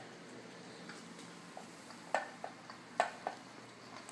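Bengal kittens eating wet food from bowls: a handful of short, wet chewing and lapping clicks, several in quick pairs about two and three seconds in.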